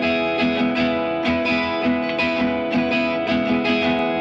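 Background music: a guitar strumming a steady chord pattern, about two strokes a second.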